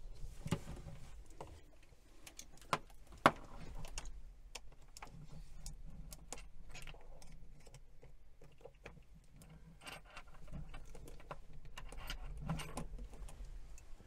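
Small metal clicks and scrapes of a small screwdriver driving screws into a metal mixer tap while the tap is handled, with two sharper clicks about three seconds in.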